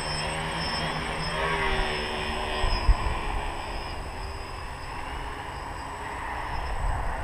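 Small multirotor (tricopter) flying at a distance: the buzz of its electric motors and propellers, with the pitch shifting as the throttle changes, over a low wind rumble on the microphone.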